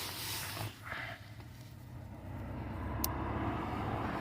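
A low vehicle engine hum that builds up over the last couple of seconds, with faint handling noises and a single sharp click about three seconds in.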